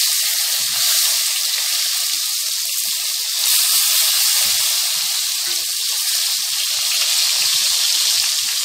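Masala-stuffed small brinjals sizzling steadily in hot oil in a kadhai, with scattered light knocks of the spatula as they are turned over.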